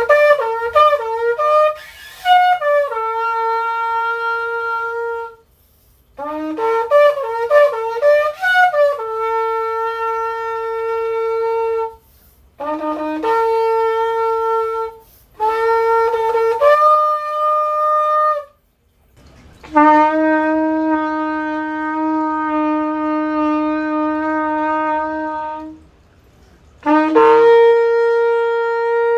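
Kudu-horn shofar, about 46.5 inches long, blown in six blasts with short breaks. The first two open with rapid broken notes and then settle into a held note. The others are plain held notes: one jumps up to a higher note partway, and one long blast in the middle sits on a lower note.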